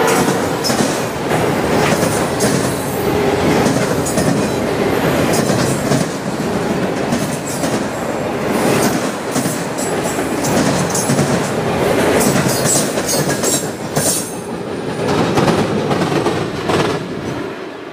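Norfolk Southern freight train of autorack and tank cars rolling past, its steel wheels clicking and rumbling over the rails. The sound falls away near the end as the last cars go by.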